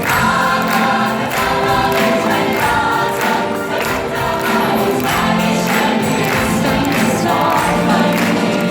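Musical-theatre cast singing together in chorus over a live orchestra, with a steady beat running under the voices.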